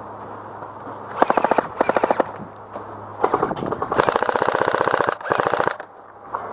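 Airsoft guns firing full-auto in five short bursts of rapid, evenly spaced clicking shots. The last two bursts are the longest.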